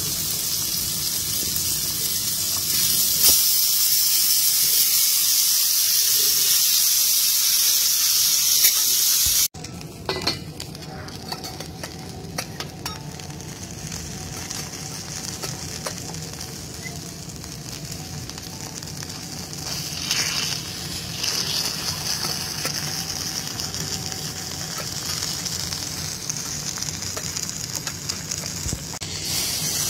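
Beef steaks sizzling in their fat on a flat steel teppanyaki griddle. A loud, steady sizzle cuts off abruptly about nine seconds in and is replaced by a quieter sizzle with scattered small pops and crackles.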